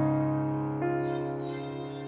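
Background piano music: slow notes held and left to ring, fading gradually, with a new note struck a little under a second in.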